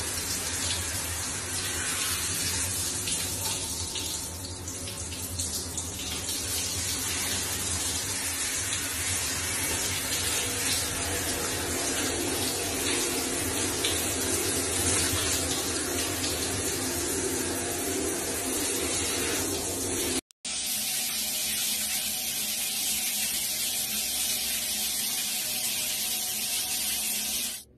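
Shower water running in a steady rush, sprayed from a handheld shower head over a wet cat in a bathroom sink. It breaks off briefly about twenty seconds in, then an overhead rain shower head runs steadily.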